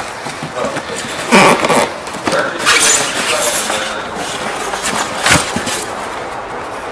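Cardboard box and styrofoam packing being handled as the foam lid is slid out and lifted: rustling and scraping, with a few louder scrapes and one sharp knock a little past five seconds in.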